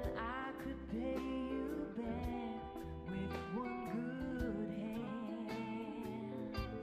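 Live rock band playing, with a woman singing the lead melody over electric bass, keyboards and drums.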